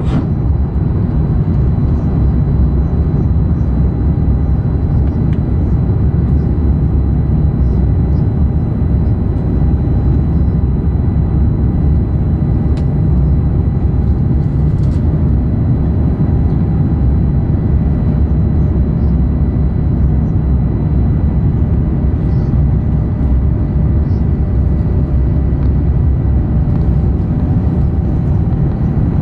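Airbus A350 cabin noise in the climb after takeoff, heard from a window seat over the wing: a steady low rumble of the Rolls-Royce Trent XWB engines and rushing air, with faint steady high whine tones above it.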